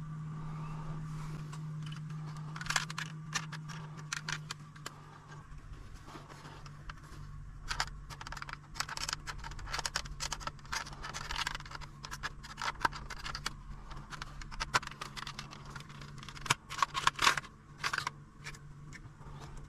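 Plastic parts of an Audi RS3 8Y centre console clicking and scraping irregularly as its clipped-together upper and lower halves are worked apart, with a cluster of sharper clicks near the end. A steady low hum sits underneath.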